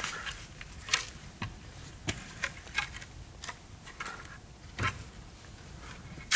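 Scattered light wooden knocks, clicks and rustles of branches being handled as a tied three-branch tripod is stood up.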